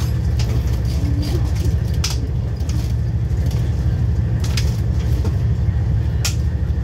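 Steady low rumble of a passenger train running, heard inside the carriage, with a few sharp clicks now and then.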